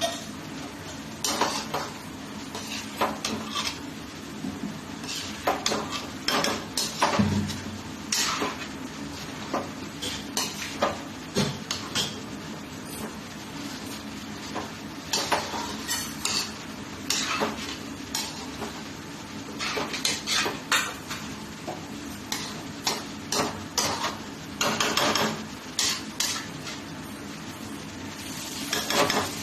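A spoon scraping and knocking against a kadhai in irregular strokes as chicken pieces are stirred and sautéed in masala gravy, over a steady sizzle.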